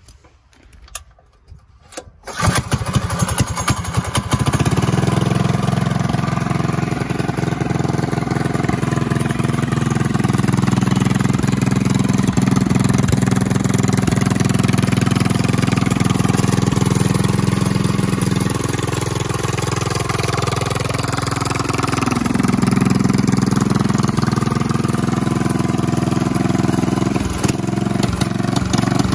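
Predator 212cc single-cylinder four-stroke engine with a straight-pipe exhaust and open air filter, starting about two seconds in and then running steadily. Its note shifts briefly about two-thirds of the way through.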